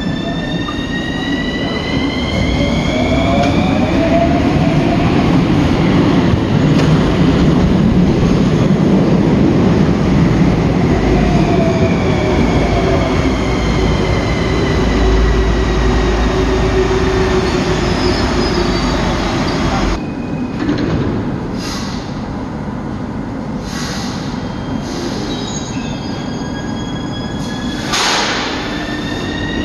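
Metro train running through an underground station: the rumble of the cars and wheels, with the traction motors' whine rising in pitch as the train gathers speed. About two-thirds of the way through the sound turns abruptly quieter. A short sharp noise follows near the end, and another motor whine rises as a train starts off.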